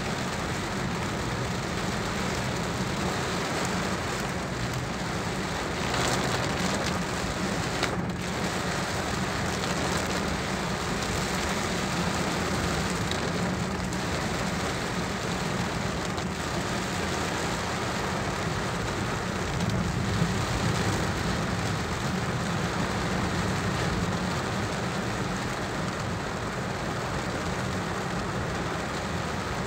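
Heavy rain falling on a car's roof and windshield, heard from inside the moving car as a steady hiss, over a low, steady rumble of the engine and tyres on the wet road.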